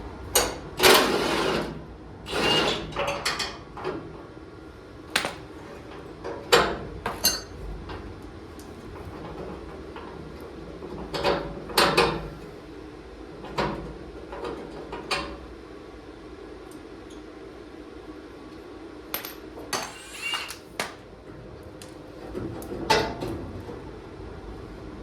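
Irregular metal clanks and knocks of tools and bumper hardware as the rear bumper of a Ford F-100 pickup is taken apart. There are a dozen or so separate hits, some in quick pairs, with gaps of several seconds between them.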